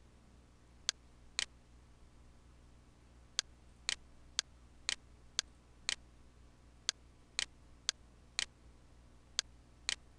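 Computer mouse clicking: about fourteen sharp single clicks, mostly half a second apart with a few longer pauses, over a faint low hum.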